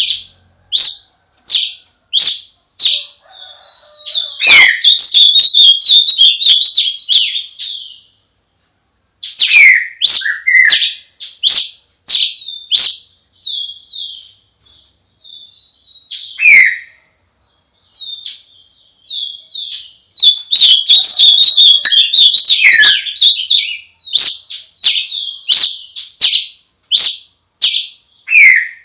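Songbird song, close and loud: sharp chirps and quick sweeping notes alternating with long runs of rapid chattering, broken by a couple of brief silent pauses.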